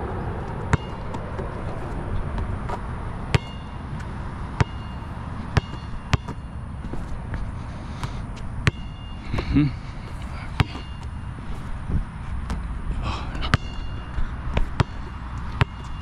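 Molten BG3800 basketball bouncing on an outdoor court: sharp slaps every second or two, several with a brief ringing ping, over a steady low rumble.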